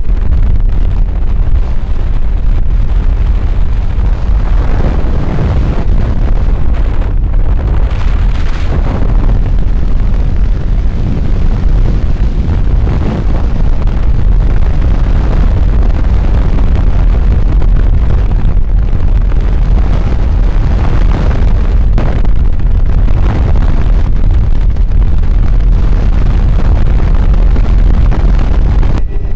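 Helicopter in flight with its doors off: a very loud, steady low rumble of rotor and engine with wind noise, overloading the microphone as the helicopter lifts off and climbs.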